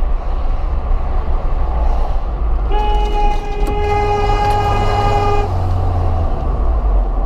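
A vehicle horn sounds one steady note for nearly three seconds, starting about three seconds in, over a constant low rumble of road and engine noise.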